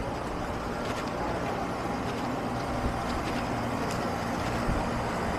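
Steady low rumble and hiss of city street ambience, with faint footsteps on paving now and then.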